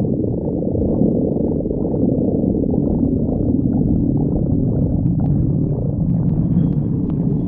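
A hungry person's stomach growling: continuous low rumbling and gurgling with slow rising and falling pitch glides.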